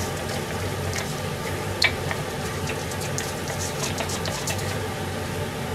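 Broth of simmered vegetables and fu bubbling in a frying pan, with scattered soft pops and ticks over a steady low hum. There is one sharper click about two seconds in.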